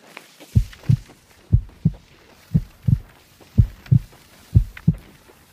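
Rhythmic low double thumps, about one pair a second, each pair a quick beat followed by a second one, like a heartbeat.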